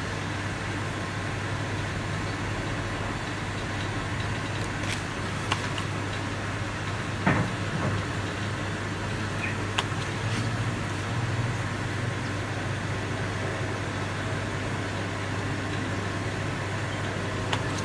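Steady hum and hiss of background noise, with a few faint, brief clicks scattered through it.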